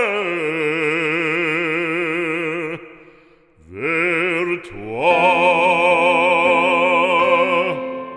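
Music: an operatic voice sings a French hymn-like song, holding long notes with a wide vibrato, with a short break about three seconds in before the next held notes.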